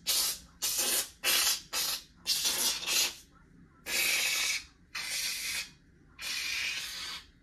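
Hair product sprayed onto hair from a spray bottle in about nine hissing bursts, the later ones longer, up to about a second each.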